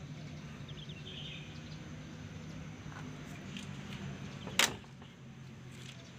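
A truck cab door shutting with a single sharp clack about four and a half seconds in, over a steady low hum.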